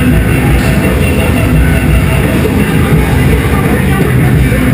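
Loud rock music with a steady, even level.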